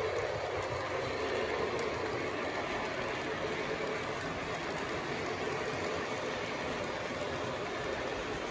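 O gauge model passenger cars rolling past on three-rail track, with a steady rumble and clatter from their metal wheels.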